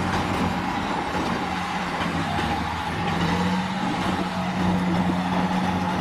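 A four-axle dump truck's diesel engine running steadily while its tipping body is raised to dump a load, with a steady low hum.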